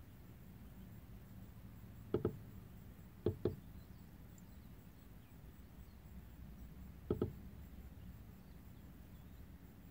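Saffron finch knocking against a car's side mirror: a quick double tap about two seconds in, two taps around three and a half seconds, and another double tap about seven seconds in.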